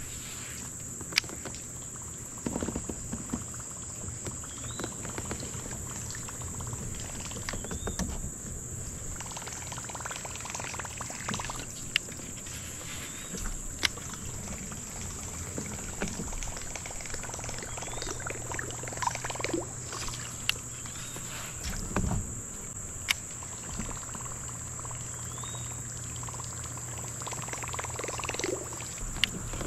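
A steady high-pitched insect drone, typical of crickets or cicadas, with scattered sharp clicks and knocks from fishing tackle handled in a kayak.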